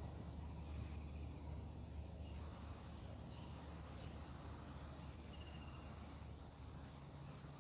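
Crickets or other insects making a continuous high, thin drone over a faint, steady low rumble.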